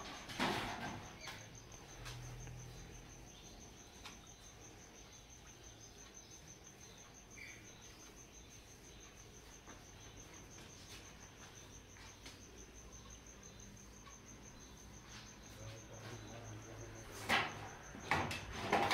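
Metal clinks of a steel ladle and skewer against a cooking pot and a steel serving tray as a cooked head-and-trotters piece is lifted out of the broth, with a few sharp clicks about half a second in and a louder cluster near the end. A steady, high, evenly pulsing trill runs underneath throughout.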